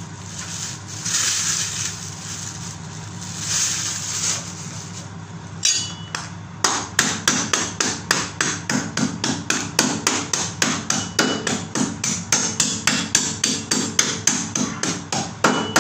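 Meat cleaver chopping up a skinned black chicken on a plastic cutting board: steady repeated chops, about three a second, starting about six seconds in.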